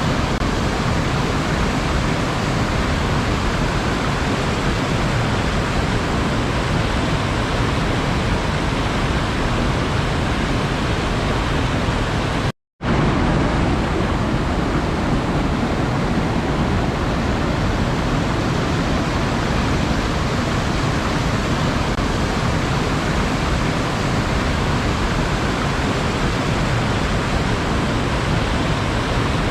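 Steady, unbroken rush of sea water, with no separate wave breaks standing out. It cuts to silence for a split second a little before halfway through.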